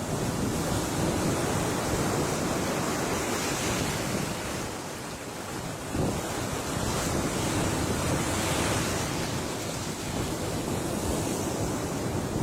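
Ocean waves breaking and washing ashore, with wind buffeting the microphone. After a short lull, a fresh wave crashes about six seconds in.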